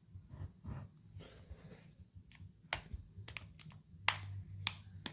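A handful of small sharp clicks and taps of a tool working at the edge of an iPhone 6s, trying to pry the screen away from the case, most of them in the second half.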